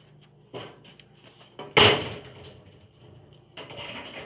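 A single sharp bang about two seconds in, ringing briefly, with lighter knocks and clatter of objects being handled before and after it.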